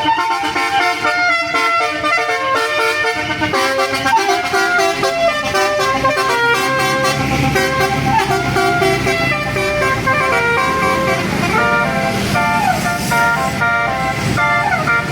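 Bus telolet horns (Basuri multi-tone horns) playing a melody of stepped, chord-like tones, with a bus engine running underneath from about four seconds in. Some notes slide in pitch near the end.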